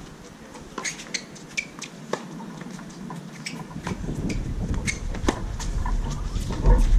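Scattered sharp pops of tennis balls being struck and bouncing on outdoor hard courts. A low rumble builds from about halfway through and is loudest near the end.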